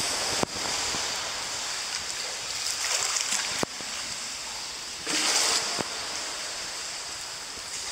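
Steady wash of water noise in an indoor swimming pool, with three sharp clicks spread through it and a brief louder hiss a little past the middle.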